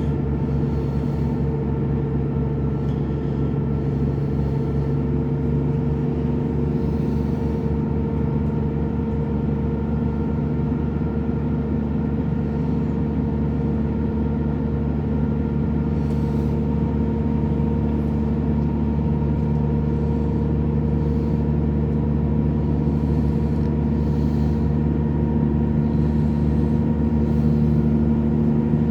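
Diesel train running, heard on board: a steady drone of engine and rumble with several held hum tones, growing a little louder near the end.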